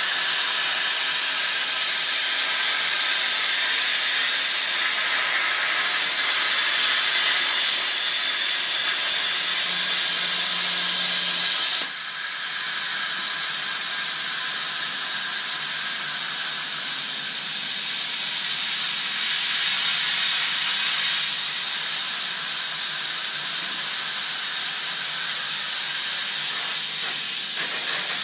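CNC plasma table's plasma torch cutting sheet metal: a loud, steady hiss that cuts off abruptly about twelve seconds in as the cut ends, after which a quieter steady hiss carries on.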